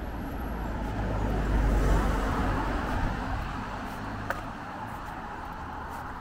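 A car passing on the street, its tyre and engine noise rising to a peak about two seconds in and then fading away. A single light click sounds about four seconds in.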